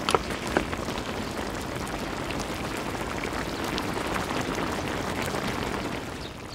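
Braised kimchi bubbling in a pot, with a steady crackle and two sharp pops in the first second.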